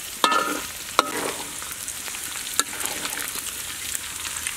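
Shredded vegetable strips sizzling in hot oil in a wok as they deep-fry. A metal spatula clanks against the wok and a perforated skimmer three times, the first clank ringing briefly.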